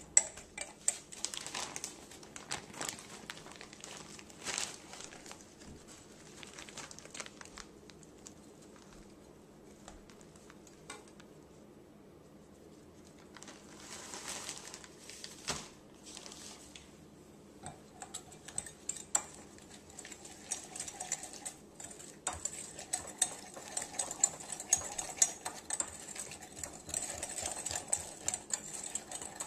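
Wire whisk beating a sauce in a glass measuring bowl: rapid clicking and scraping of the wires against the glass. It dies down for a few seconds in the middle, then picks up again and is busiest near the end.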